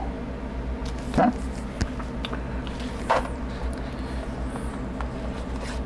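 Paper and card being handled, a booklet's pages and loose printed sheets shifted about with a few light taps and rustles, over a steady background hum. Two brief higher-pitched sounds stand out, one about a second in and one about three seconds in.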